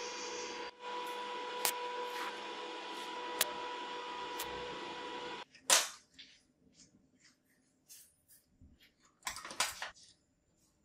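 Electric arc welding on steel square tube: a steady crackling hiss with a welder's hum and a few sharp pops, which cuts off suddenly about five seconds in. Then comes one sharp metallic clink, followed by scattered light clicks as the steel welding-clamp parts and a coil spring are handled.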